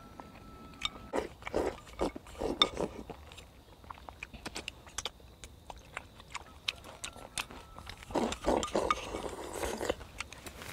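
Slurping starch noodles and chewing, with small clicks of chopsticks against the bowl in between; a few short slurps come in the first few seconds and again near the end.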